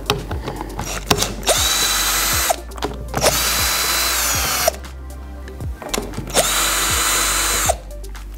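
Cordless drill-driver backing out the cover screws of an electric actuator's lid in three short runs of a second or so each, with sharp clicks between the runs.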